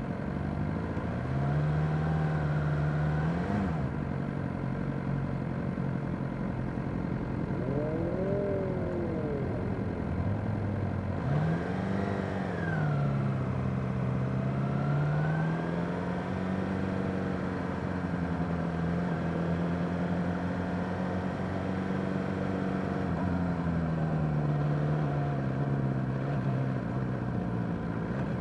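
Suzuki GSX-R600 sports motorcycle's inline-four engine running at low riding speed, its pitch rising and falling several times with throttle and gear changes, settling to a steadier higher note for the second half. Other motorcycles in the group rev briefly twice, about a third of the way in and again shortly after.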